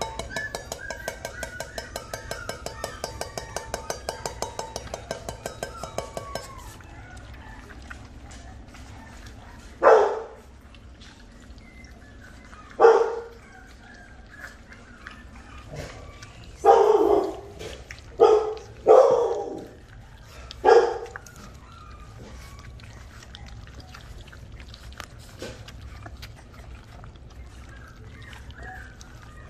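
Eight-week-old Rottweiler puppies: a rapid buzzing pulse for the first six seconds, then six short, sharp puppy barks between about ten and twenty-one seconds in, two of them a little longer.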